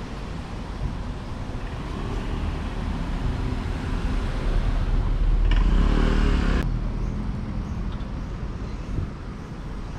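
Street traffic with a motor vehicle passing close by, growing louder to a peak about six seconds in and then dropping away.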